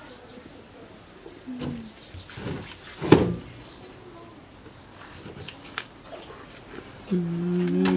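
A few sharp knocks and scrapes of a cleaver and knives cutting pineapple, the loudest about three seconds in. Near the end a person's voice makes a long hum, held level and then falling in pitch.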